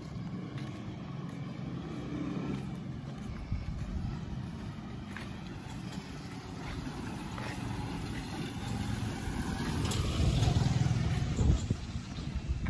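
Motorcycle engine of a passenger tricycle running as it comes up the road, growing louder and loudest about ten seconds in as it passes close.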